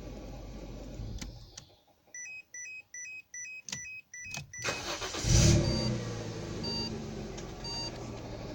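Citroen C5's V6 engine running, then switched off; about eight quick warning beeps sound with a few clicks, then the engine is started with a loud burst and settles back to idle, with two more single beeps.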